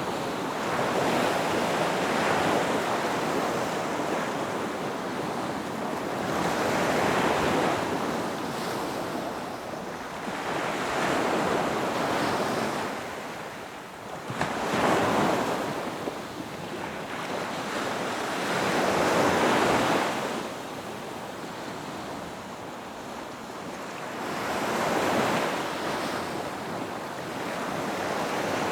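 Ocean surf: waves breaking and washing back in slow swells every four to six seconds, with one sharper crash about halfway through.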